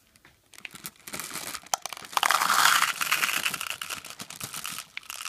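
Plastic-film M&M's bag crinkling as candy-coated chocolates pour out of it and patter into a clear plastic cup, with a dense run of small clicks, loudest about two to three seconds in.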